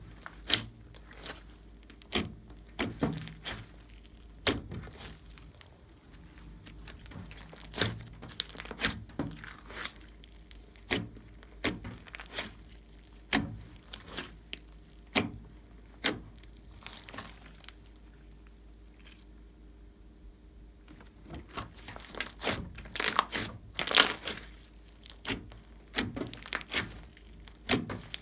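Large glossy slime with floam mixed in, kneaded, squeezed and stretched by hand: irregular sharp wet clicks and pops, getting thicker and louder about four-fifths of the way through.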